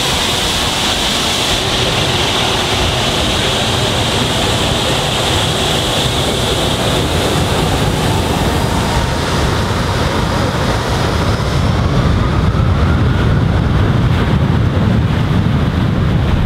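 Boeing 757-200 jet engines running at low thrust with a steady high whine, then spooling up toward takeoff power with a rising whine. From about two-thirds of the way through, a deep rumble and the rush of jet blast buffeting the microphone build and become the loudest sound.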